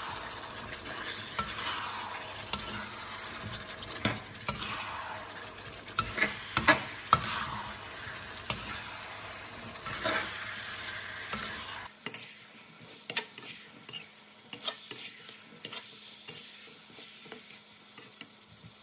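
Beef, onion and potato cubes stir-frying in curry paste in a wok: a steady sizzle with a metal spatula scraping and knocking against the pan. About twelve seconds in the sizzle drops quieter and the knocks come more lightly.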